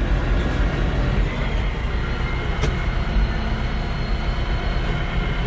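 TYM 654 tractor's diesel engine running steadily, with a faint high whine joining about a second in.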